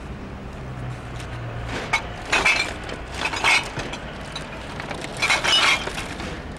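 Glass bottles dropped into a bottle bank, crashing and smashing inside it three times: about two seconds in, about three and a half seconds in, and near the end.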